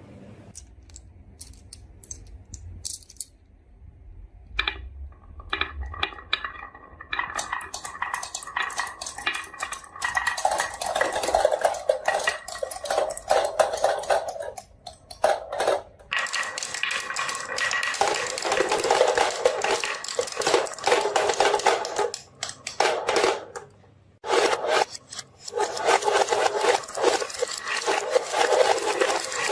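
Marbles rolling and clacking down a wooden marble run: scattered clicks at first, thickening into a dense, continuous clatter about ten seconds in, with two short breaks later on.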